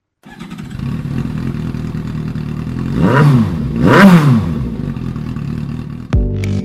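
Suzuki GSX-S750's inline-four engine with an Akrapovic slip-on exhaust running, blipped twice in quick succession about three and four seconds in, the pitch rising and falling back each time.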